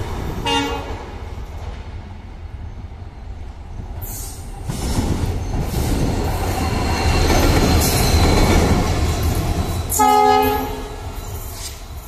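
WDP-4D diesel locomotive passing, its engine and wheels growing loud as it runs by. Its multi-note horn sounds a short blast about half a second in and a longer blast about ten seconds in.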